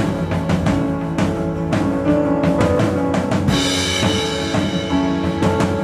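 Live band playing an instrumental passage between sung lines: a drum kit keeping a steady beat of bass drum and snare under held chords.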